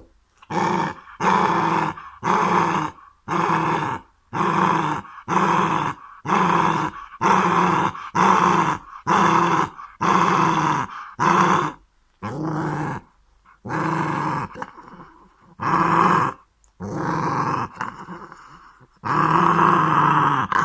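Dog growling in repeated loud bursts, about one a second: a guarding, defensive growl at someone near its owner.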